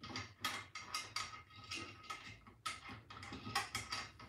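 Irregular clicks and light knocks as hands handle an Elegoo Mars 3 resin 3D printer's resin vat.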